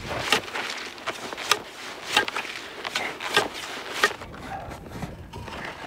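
Metal snow probe being pushed down through deep glacier snow: irregular crunching, scraping and clicking as the pole works its way into the snowpack.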